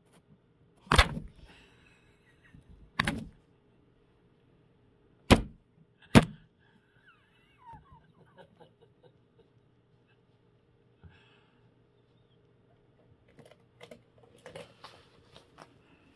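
Four sharp knocks close to the microphone, as the cat bumps against the phone and the wooden cabinet panel around the cable hole. Faint scattered clicks and rustling follow near the end.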